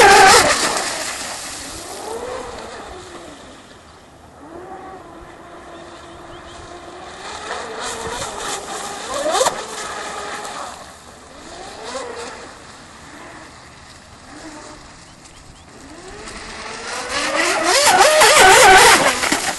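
Twin-motor 12S fast-electric RC drag hydroplane running flat out across the water, its pitch rising and falling as it sweeps past. It is loudest at the start and again near the end, when it passes close.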